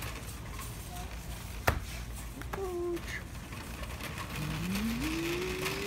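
Metal shopping cart rolling along a store floor with a steady low rumble and one sharp clack about a second and a half in. Near the end a tone glides upward and then holds steady.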